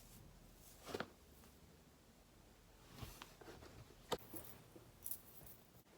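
Near silence in a small room, broken by a few short, faint handling clicks and rustles about one, three, four and five seconds in.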